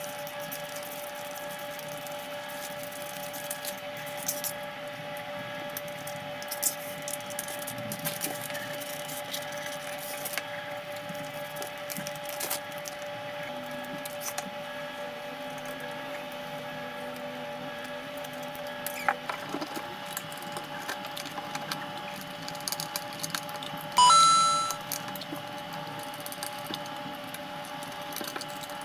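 Self-adhesive film being handled and cut with a utility knife on a cabinet door panel: scratchy rustling and scattered small clicks over a steady hum. Near the end, a brief loud high-pitched tone rings out.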